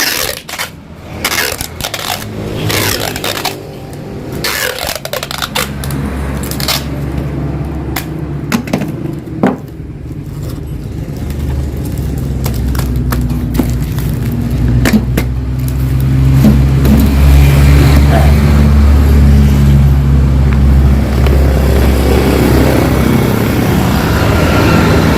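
Yamaha RX-King two-stroke single-cylinder motorcycle engine running through a freshly hollowed-out (bobok) exhaust tuned for a crisp, growling 'garing ngorok' note. A few knocks and scrapes come first, then the engine runs, its pitch shifting up and down and getting louder in the second half.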